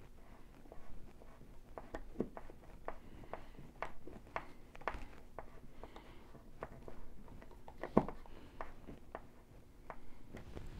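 Hand screwdriver turning a screw into a wall anchor in drywall: a string of faint, irregular clicks and creaks, about two a second, with one louder click late on.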